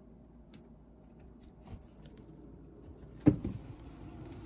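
A single heavy thump about three seconds in, with light rustling and clicks around it: a cat jumping down from a desk and landing on a wooden floor.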